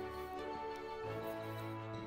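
Soft background music of sustained chords, shifting to a new chord about a second in.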